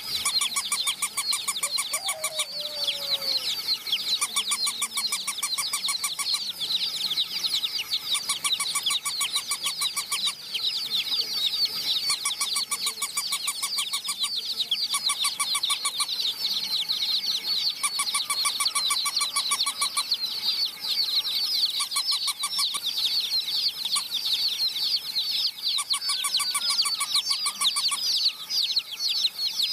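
A crowd of baby chicks peeping continuously, many high, short, downward-sliding peeps overlapping. Short spurts of rapid, even clicking come and go every couple of seconds under the peeping.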